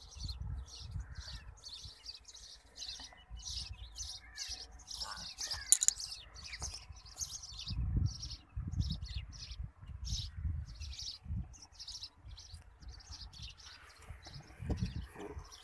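Small birds chirping: a steady run of short, high chirps, several a second, with bursts of low rumbling on the microphone.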